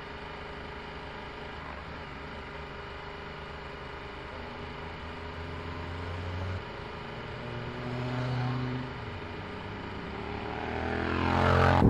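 Motorcycle engine running steadily on the move, heard from on board, with oncoming motorcycles passing in the other lane; one grows louder and passes close near the end.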